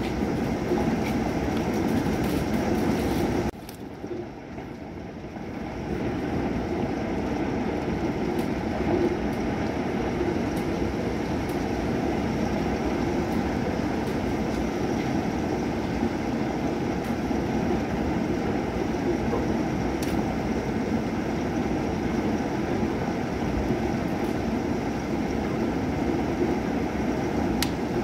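Thunderstorm: heavy rain falling steadily with a low rumble. The sound drops suddenly about three and a half seconds in and builds back up over the next two seconds.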